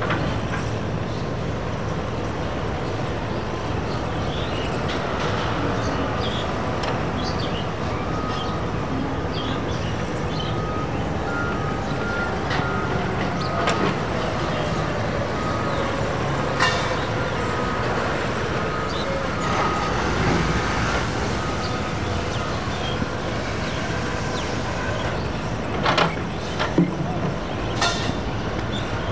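Steady low rumble of engines and road traffic, with a few sharp clicks and knocks. A faint high beeping repeats through the middle.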